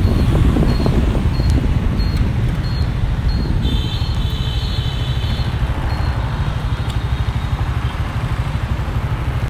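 Riding a motorbike in city traffic: wind buffeting the microphone over a steady low rumble of engine and road noise.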